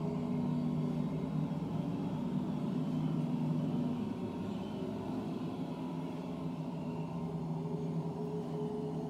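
A low, steady drone of several held tones that swell and fade slowly.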